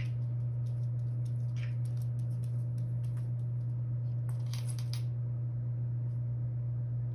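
A steady low hum with light clicks and small metallic ticks scattered over it, and a short clatter about four and a half seconds in.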